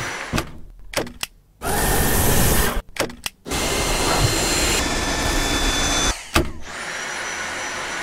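Dyson cordless stick vacuum's motor running with a steady high whine, in short stretches that cut off abruptly, with a few sharp clicks between them.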